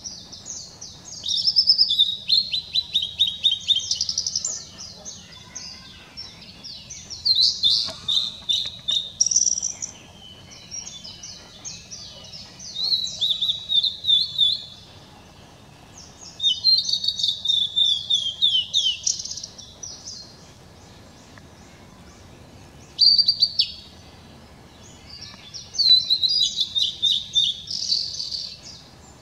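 Male blue-and-white flycatcher singing: phrases of clear, quick whistled notes, many sliding downward, repeated every few seconds with short pauses between them.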